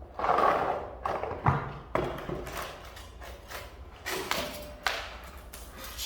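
Irregular knocks, thuds and scraping from the compressor and its packaging being handled, with a short squeaky scrape about four seconds in.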